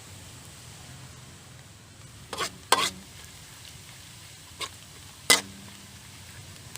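Ginger frying in plenty of hot oil in a pan, a steady sizzle as it crisps. A stirring utensil knocks against the pan four times, about halfway through; two of the knocks ring briefly.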